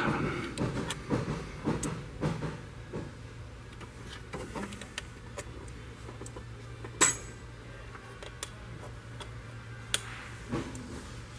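Ratchet and dial torque wrench clicking in short strokes as camshaft bearing cap bolts are tightened to about 11 newton metres, then a few sharp metal clicks of the tool against the engine, the loudest about seven seconds in. A low steady hum runs underneath.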